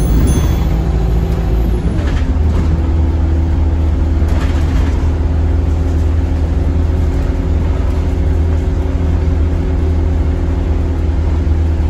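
Diesel engine and drivetrain of an Alexander Dennis Enviro200 MMC bus running steadily, heard from inside the cabin, with a deep rumble and an engine note that changes pitch about two seconds in.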